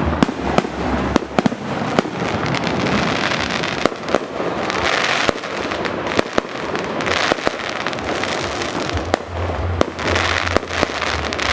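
Fireworks display going off: many sharp bangs, about two a second, over a continuous crackling hiss that swells and fades.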